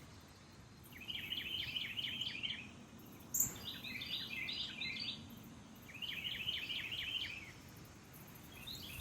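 A songbird singing the same phrase over and over: a quick series of high, evenly repeated notes lasting about one and a half seconds, coming back about every two and a half seconds. A single brief high chip comes about three seconds in, over a faint steady outdoor hiss.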